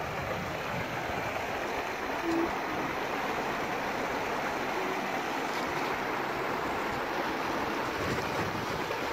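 Shallow river water running over rocks and stones, a steady rushing.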